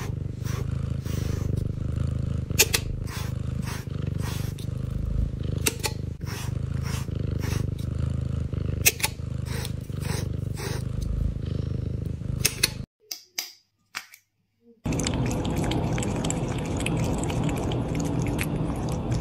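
Pet slicker brush scratching through a cat's fur in repeated strokes, a sharp scratch every second or so, over a steady low rumble. After a brief near-silent break about thirteen seconds in, a cat licks and gnaws at a catnip ball.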